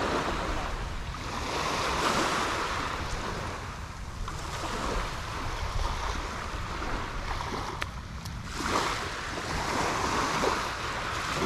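Water washing at the shore, its rush swelling and fading every few seconds, with wind rumbling on the microphone.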